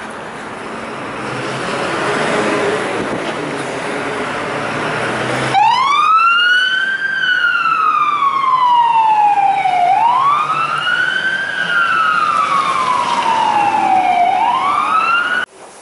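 Vehicle engine and street noise, then about five seconds in a fire engine's siren starts wailing: a quick rise and a long, slow fall in pitch, repeated about every four to five seconds, until it cuts off suddenly near the end.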